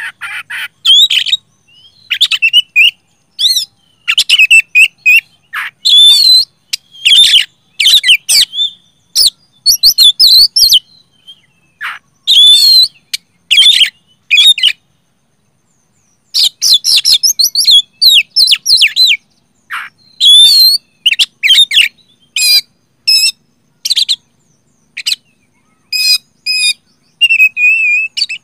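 Oriental magpie-robin singing loudly: a fast, varied run of sharp whistled and chattering phrases, broken by a pause of about two seconds midway.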